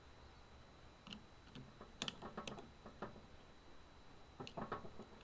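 Faint metallic clicks and taps of a screwdriver working against the metal end housing of a burned-out refrigerant compressor during disassembly. The clicks come in a cluster about two seconds in and again near the end.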